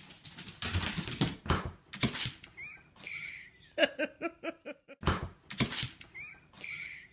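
A small dog moving about on fabric: repeated scratchy rustling bursts, two short high squeaks, and a quick run of short pitched animal sounds about four seconds in.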